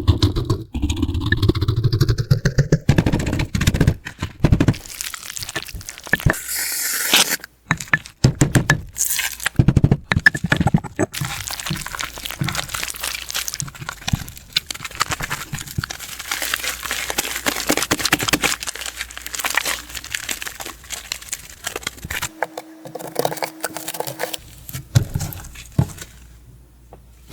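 Hands working slime: squishing, stretching and poking it, with a dense run of crackling clicks and pops as air pockets in the slime burst.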